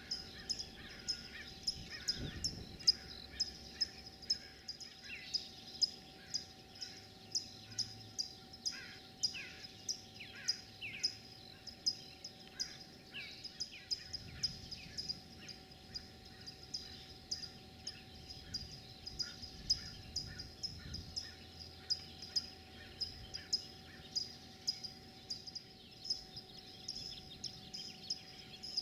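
Birds calling before dawn: a high, short chirp repeated about twice a second, with other birds' short falling calls mixed in.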